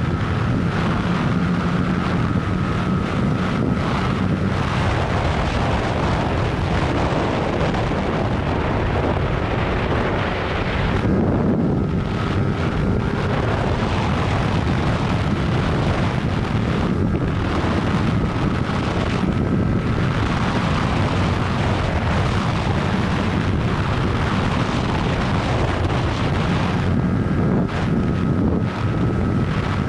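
Yamaha YZF-R15 single-cylinder engine running under way, buried in heavy wind noise on the microphone. The wind eases briefly about eleven seconds in, letting the engine tone come through.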